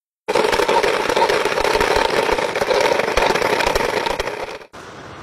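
Sand Flea wheeled robot running over asphalt: a loud, crackling, rattling mechanical noise that cuts off suddenly near the end, giving way to a quieter steady hiss.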